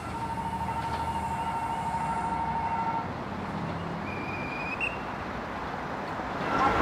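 Railway level-crossing warning signal sounding: a repeating electronic ding with a steady tone that stops about three seconds in, over the low rumble of a commuter train running away.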